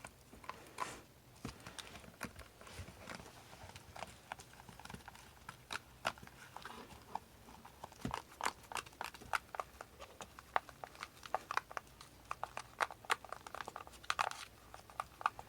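Glue being stirred in a bowl: the stirring utensil makes faint, irregular clicks and taps against the bowl, several a second.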